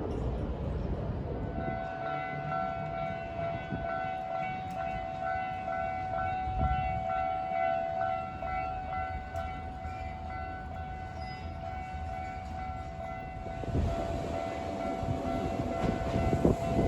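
Japanese level-crossing warning bell ringing in a steady electronic repeat, starting about a second and a half in. Near the end a Hankyu train comes onto the crossing, its rumble and wheel clacks rising under the bell.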